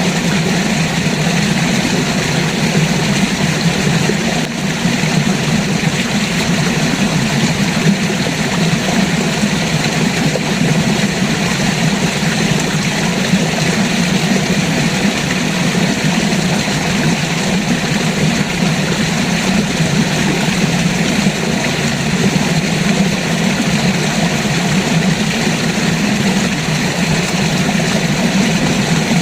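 River water rushing, a steady unbroken roar.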